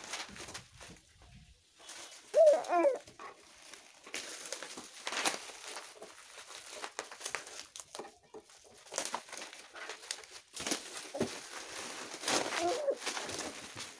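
Plastic film and bubble wrap crinkling and rustling as they are pulled off flat-pack wood panels, with light knocks of the panels. Two brief pitched vocal calls cut in, the louder one about two and a half seconds in and another near the end.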